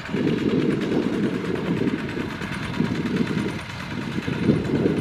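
Two-wheel walking tractor's engine running steadily under load while it pulls through the soil on cage wheels, with a brief slight dip a little before four seconds in.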